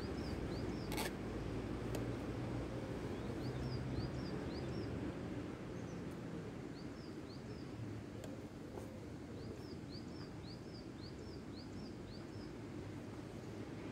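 Small birds chirping in short, rising notes that come in scattered runs, over a steady low rumble of outdoor background noise. A single sharp click about a second in.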